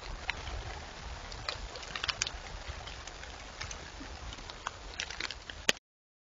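Outdoor ambience picked up by a trail camera's microphone: a steady low rumble with scattered light ticks and rustles. A sharp click comes near the end, as the recording cuts off to silence.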